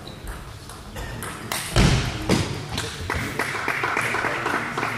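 Table tennis ball clicking back and forth off bats and table in a rally that ends about two seconds in with one loud hit, followed from about three seconds in by spectators clapping.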